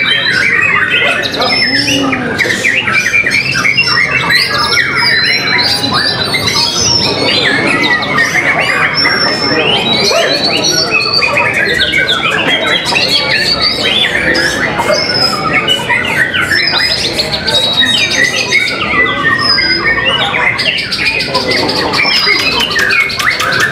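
White-rumped shamas singing, several at once: a dense, continuous stream of overlapping whistles, trills and rapid chatter.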